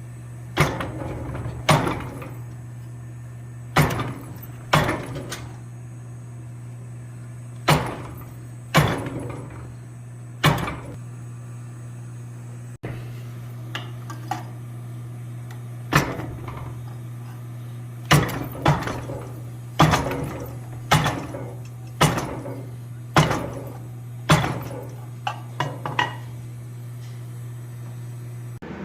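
Hammer blows on steel at the anvil, separate strikes with a short metallic ring, spaced about a second apart at first and coming quicker later on. A steady low hum runs underneath.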